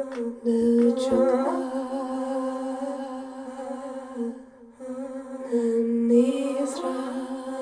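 Music: a soft hummed vocal line over long, held notes that step slowly from pitch to pitch, with a few light percussive clicks about a second in.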